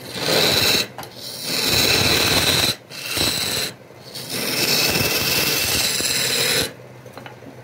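Flat steel scraping tool cutting into the end of a palm-wood blank spinning on a lathe, in four loud scraping passes with short breaks. The cutting stops near the end, leaving the lathe running.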